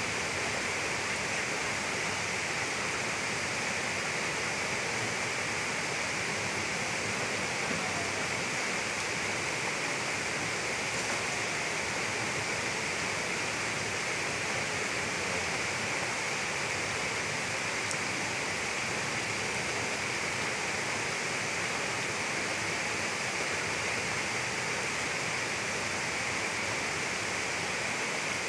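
Floodwater rushing past steadily, an even, unbroken hiss of flowing water.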